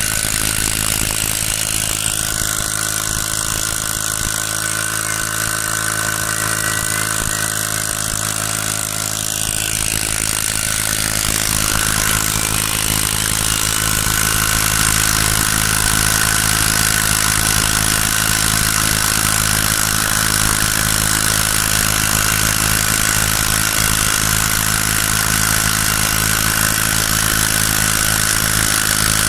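Small grass-cutter engine driving a boat, running steadily, growing slightly louder about halfway through.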